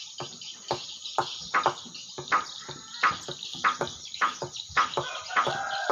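Swiftlets twittering around a swiftlet house: a dense high hiss of calls with sharp chirps about every half second.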